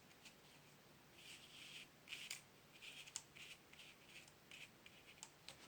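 Faint crackles and light scratches of paper being handled in short, irregular bursts, the loudest about two seconds in.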